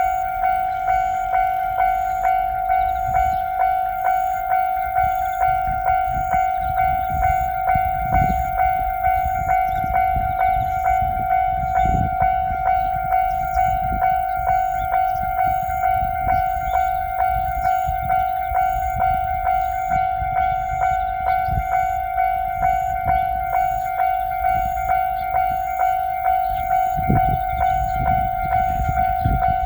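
Japanese railroad crossing's electronic bell ringing steadily, a little faster than one strike a second, while a train passes with a low rumble of wheels on the rails that swells and fades.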